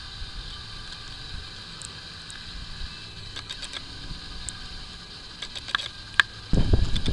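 Faint steady outdoor rumble with a few light clicks, then wind suddenly buffeting the microphone near the end.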